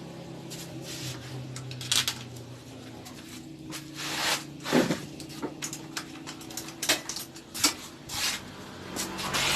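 Scattered metal clicks and clinks of hand tools working on a motorcycle engine, over a faint steady hum.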